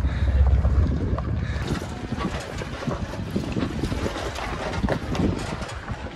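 Wind buffeting the microphone, heaviest in about the first second, over the low sound of an off-road truck crawling slowly over a rocky trail, with an irregular crackle of small sharp sounds throughout.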